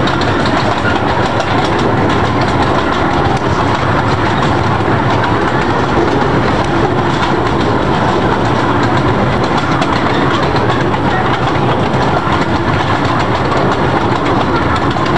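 Small zoo train rolling along its track, heard from an open-sided passenger car: a steady running rumble of the wheels on the rails with light clicking over the rail joints.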